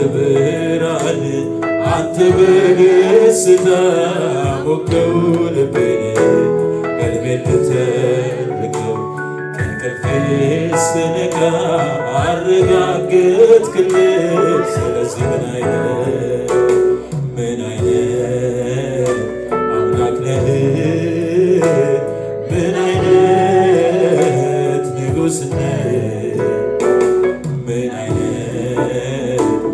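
A man singing an Amharic gospel worship song into a microphone, with instrumental accompaniment.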